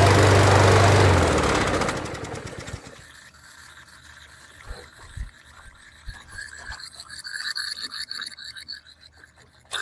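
A 140cc Powermore single-cylinder engine on a walk-behind lawn mower running, then stopping about a second in and winding down over the next two seconds. Afterwards faint clicks and a faint wavering gurgle, with a sharp click near the end. The owner traces a gurgling sound to a part he forgot to refit, which left the engine unable to breathe.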